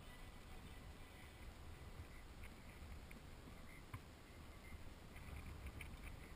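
Near silence outdoors: a faint, steady low rumble with a few faint ticks and one sharp click about four seconds in.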